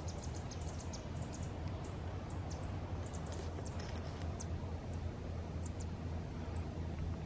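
Outdoor ambience by still water: a steady low hum under scattered, faint, high-pitched chirps and ticks, several a second.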